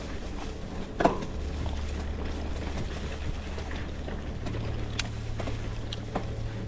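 Bicycle riding along a narrow dirt track: tyres rolling over the ground, with wind on the microphone and a steady low hum that steps up in pitch near the middle. A sharp knock about a second in, then a few faint ticks.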